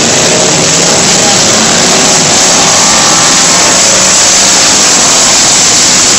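Stock car engines racing around a dirt oval, a loud, steady roar of several cars at speed.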